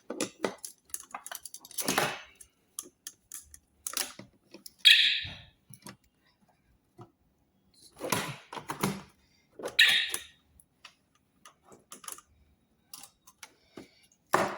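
Hard plastic hooter units and power adapters being handled and set down: scattered clicks, knocks and rattles, with two short, loud high-pitched chirps about five and ten seconds in.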